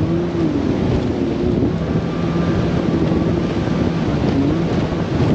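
Bass boat's outboard engine running as the boat moves over choppy water, its pitch dipping briefly about a second in and again near the end, under heavy wind buffeting the microphone.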